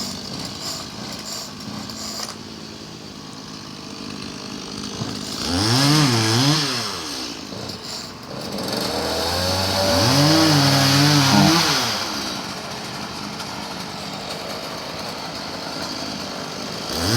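Gas chainsaw running, revved up hard twice, about six seconds in and again around ten seconds in, settling back to a lower running speed between.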